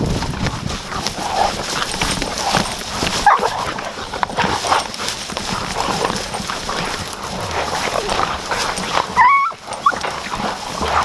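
Hog-hunting dogs yipping and whining as they run, with brush scraping and rustling past close by; a short high yelp stands out about nine seconds in.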